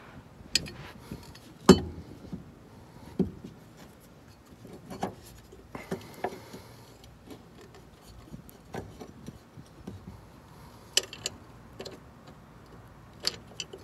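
Metal sway-bar mounting bracket clinking and knocking against the rear suspension as it is handled and lined up by hand: scattered sharp clicks, the loudest about two seconds in, and a brief scraping rub about six seconds in.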